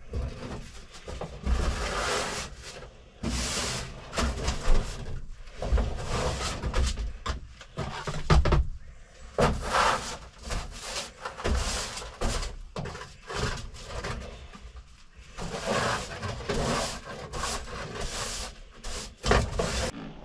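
Irregular handling noise from work on a truck cab interior: scraping and rustling in bursts of a second or so, with scattered knocks and clunks.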